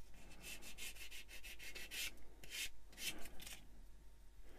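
Hand sanding of a tiny plastic model-kit piston part: a series of short, irregular scratching strokes of the sander across the plastic, stopping a little after three and a half seconds.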